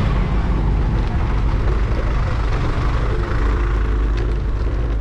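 Busy road traffic: a steady, loud mix of vehicle engines and road noise, with no let-up.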